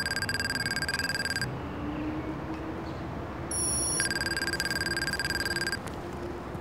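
Retro video-game dialogue blips: a rapid string of high electronic beeps, the sound of a character's text being typed out in a speech bubble. It runs for about a second and a half at the start and again for about two seconds from about four seconds in.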